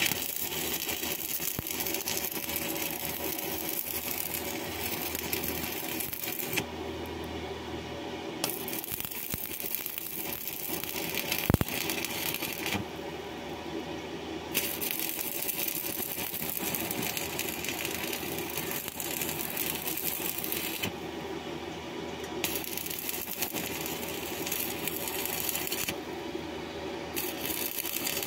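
Stick (arc) welding: the electrode's arc crackles and sizzles as it lays a bead on a metal pipe, breaking off for a second or two about four times before striking again. A single sharp tap about eleven seconds in is the loudest moment.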